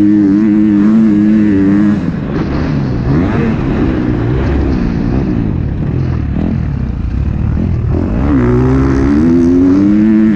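2021 KTM 250 SX-F's single-cylinder four-stroke engine revving hard and held high for about two seconds, then the throttle chopped, with revs rising and falling as the rider rolls on and off. About eight seconds in it climbs back to high revs and cuts off sharply at the end.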